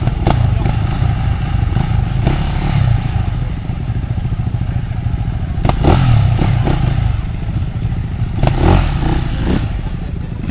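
Enduro motorcycle engine running, a steady low rumble, with several sharp knocks and clatters over it.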